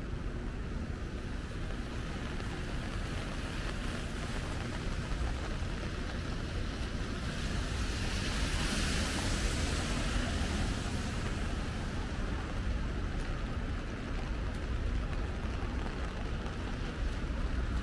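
Wet city street traffic: a steady low rumble of vehicles, with the hiss of tyres on rain-soaked pavement swelling and fading about halfway through.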